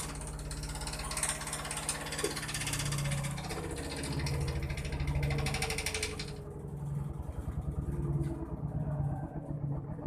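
LG front-load washing machine running: a steady motor hum with a hiss over it that stops about six seconds in.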